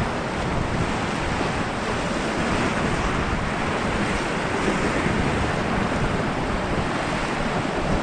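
River rapids rushing and churning around an inflatable raft, a steady loud roar of whitewater, with wind rumbling on the microphone.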